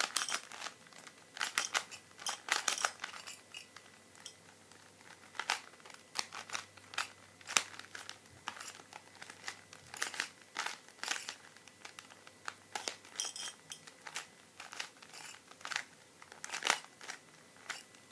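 A Rubik's Cube being turned fast by hand: the plastic layers twist with irregular clicks and clacks in quick flurries, with short pauses between them.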